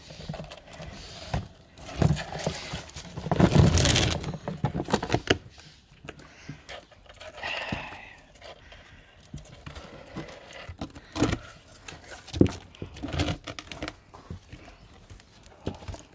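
Ferrets moving about in a plastic tub and against a wooden box: irregular knocks, taps and scratching, busiest about three to four seconds in.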